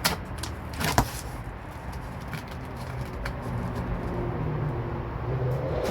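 Two sharp knocks about a second apart as parts boxes are handled, followed by the low steady hum of a motor vehicle running, growing slightly louder near the end.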